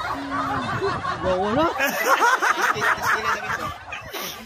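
Several people laughing and chattering over one another, the laughter busiest about two seconds in and dying down near the end.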